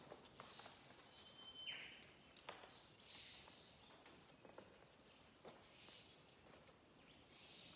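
Near silence, with faint ticks and scrapes of barbed wire being wound onto a wire ball and a few faint bird calls.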